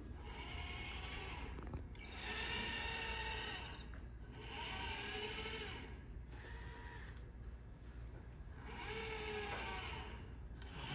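Robot arm's motors whining in a series of separate moves, each lasting a second or two with short pauses between, as the arm steps through a programmed sequence of positioning and gripper commands.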